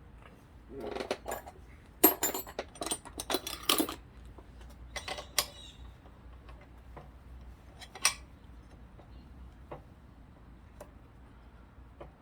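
Metal tools and bike pedal parts clinking and clattering as they are handled, a quick run of sharp clinks about two seconds in, a few more a little later and a single sharp clink past the middle.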